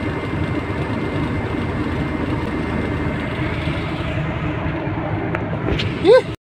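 Truck engine and road noise heard inside the cab while driving, a steady rumble. Just before the end comes a brief, loud rising tone.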